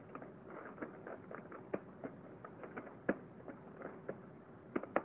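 Computer keyboard keys being typed on: faint, irregular clicks, several a second, with a few sharper key strikes.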